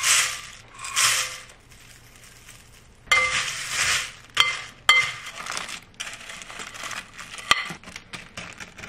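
Frosted Flakes poured from a measuring cup into a glass bowl, two rustling swishes. The flakes are then stirred into melted butter with a spoon: crunching and crackling, with a few ringing clinks of the spoon on the glass bowl.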